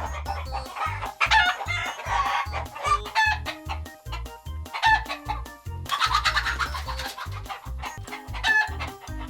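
Chickens clucking and a rooster crowing, over background music with a low beat.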